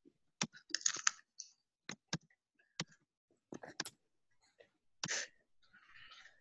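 Computer keyboard typing: scattered, irregular key clicks, faint, with a couple of short rustling noises between them.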